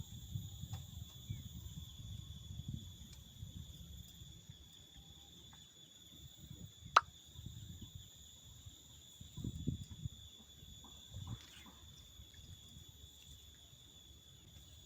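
Insects in the surrounding vegetation droning steadily on a high, unchanging pitch, over a low rumbling noise that is strongest in the first few seconds. A single sharp click sounds about seven seconds in, and a soft low thump near the ten-second mark.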